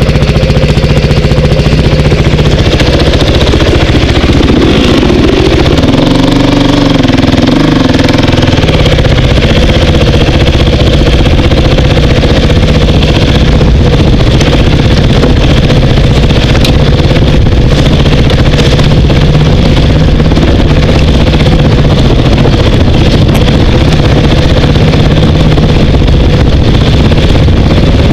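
Dirt bike engine running steadily under throttle, heard loud and close from the rider's helmet. Its pitch rises and falls briefly about five to eight seconds in.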